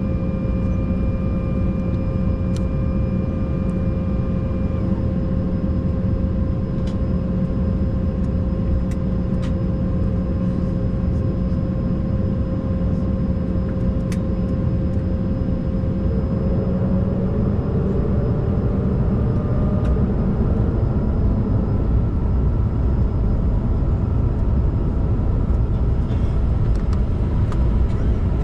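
Steady cabin hum inside an Embraer 190 airliner at the gate, with several held tones and a few faint clicks. A bit over halfway through, one tone slides upward, higher tones join and the hum grows slightly louder as the aircraft begins to move back.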